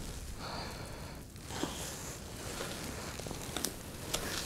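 Faint rustling and handling noise with a few light clicks, over a low steady rumble.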